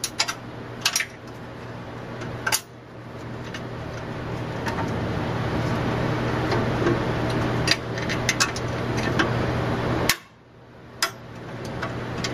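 Scattered metallic clanks and knocks over a steady machine hum. The hum builds gradually, cuts off abruptly about ten seconds in, then returns.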